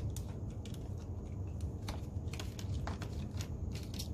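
Small irregular clicks and ticks of a screwdriver and hands working small Phillips screws out of a DJI Spark remote controller's plastic housing, over a steady low hum.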